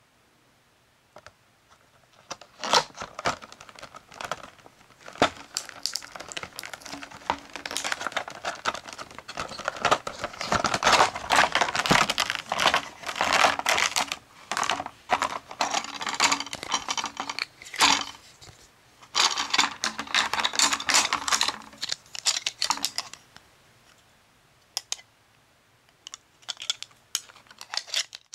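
Clear plastic blister packaging crinkling and crackling as it is handled and opened, with scattered clicks and taps of the plastic cutter pieces. The handling comes in spells and thins out to a few isolated clicks near the end.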